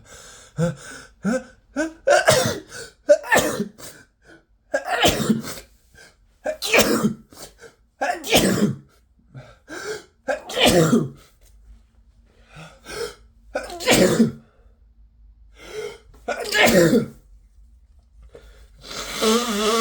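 A man's sneezing fit from a head cold: about eight wet sneezes one to three seconds apart, with short breaths between them.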